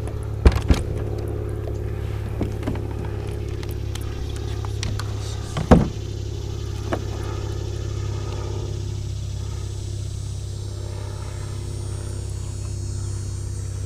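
A steady, low motor hum, with a few sharp knocks and clatters of gear being handled on the kayak, the loudest about six seconds in.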